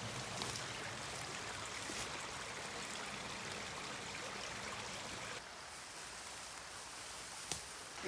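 A small creek flowing: a steady rush and trickle of water. It is a little quieter from about five and a half seconds in, and there is a single short click near the end.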